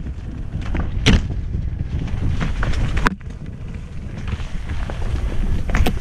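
Mountain bike descending a dirt forest singletrack at speed: wind buffeting the helmet-mounted microphone over a steady rumble of tyres on dirt, with sharp knocks and rattles from the bike hitting bumps, about a second in, at about three seconds and near the end.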